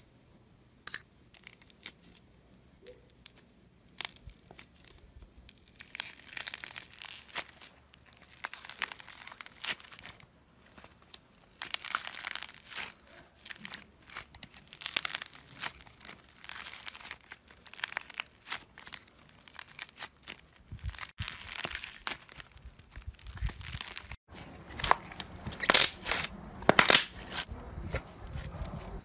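Hands squeezing, pulling apart and stretching slime, with soft crackling, crinkling and tearing sounds that come and go. There are only a few faint clicks at first, and it grows louder and sharper over the last few seconds.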